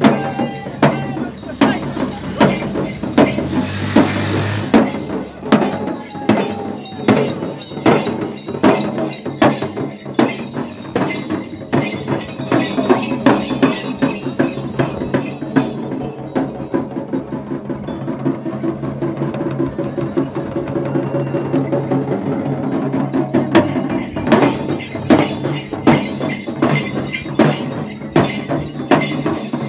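Jhankri shamans' dhyangro frame drums beaten with sticks in a steady, quick rhythm, with the brass bells on the dancers' chest straps jingling along.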